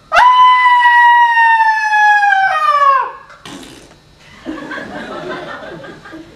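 A long, high wailing cry, held for about three seconds and sliding slowly down in pitch, dropping lower just before it stops. A short hiss and a much quieter, indistinct rustling follow.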